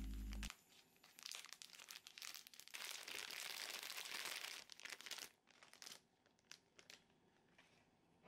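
Plastic bag of powdered sugar crinkling as it is squeezed and tipped, the sugar pouring out onto cream cheese in a bowl; the rustling swells in the middle and dies away after about six seconds, leaving a few light taps.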